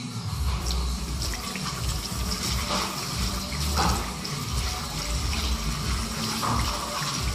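Kitchen faucet running, its stream splashing onto a freshly etched copper circuit board and into a stainless steel sink as the board is rinsed and rubbed by hand.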